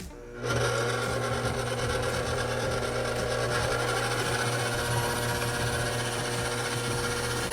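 KitchenAid stand mixer switching on about half a second in and running steadily with a low motor hum, beating brownie batter.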